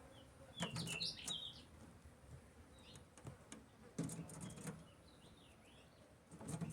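Pet white bird chirping faintly, short high notes in a cluster about a second in and again around three and four and a half seconds, with a few soft knocks among them.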